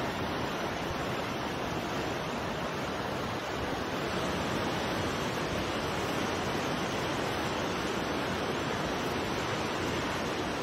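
Storm wind and rough sea making a steady, even rush of noise, with wind buffeting the microphone. It is the wind of a tornado (waterspout) moving in from the sea.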